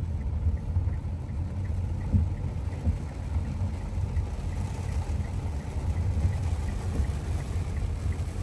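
Car driving on a wet road in the rain, heard from inside the cabin: a steady low rumble of engine and tyres.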